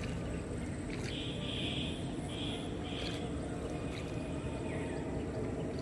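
Boat moving slowly through water among floating plants, a steady low rumble of water against the hull. About one to three seconds in come three short high calls, an animal or bird.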